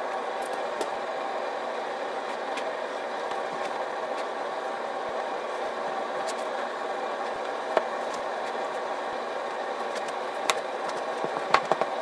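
A steady mechanical drone, like a motor running, with a few sharp clicks and taps near the end from handling the wooden sanding block and glue bottle.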